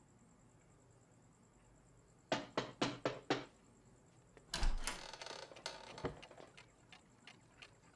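Five quick knocks on a door, then a louder clatter with a thud. After that a clock ticks faintly, about three ticks a second.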